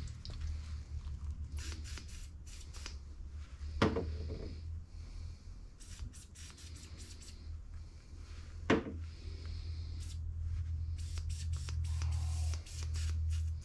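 Lug nuts and hand tools being handled and threaded onto wheel studs: scattered metal clicks and light scrapes, with a sharper knock about four seconds in and again about nine seconds in, over a steady low hum.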